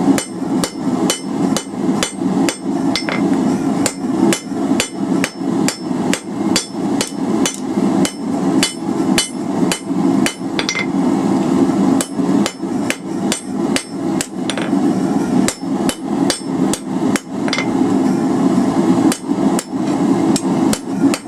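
Cross-peen hammer striking 3/8-inch round steel bar on an anvil in steady, evenly spaced blows, about two to three a second, smoothing out the hammer marks left from drawing the bar out. A steady low hum runs underneath.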